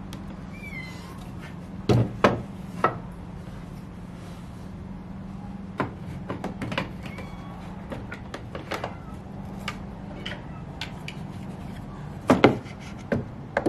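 Wooden boards being set down and shifted on a table saw's top: a few sharp knocks about two seconds in, scattered light taps, and a loud cluster of knocks near the end, over a steady low hum.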